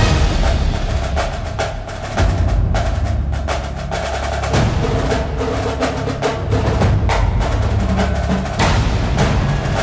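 Background music: a percussion-heavy track of rapid, sharp drum hits over a steady bass.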